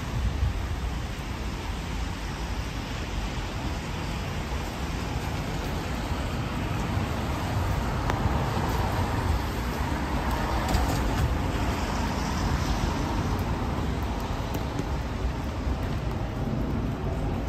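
City road traffic on a wet street: a steady rumble of cars, with one vehicle passing and its tyre noise swelling about halfway through.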